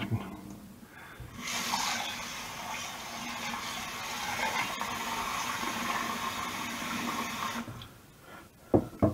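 Kitchen tap running steadily into the sink for about six seconds, then turned off. Two short low knocks follow near the end.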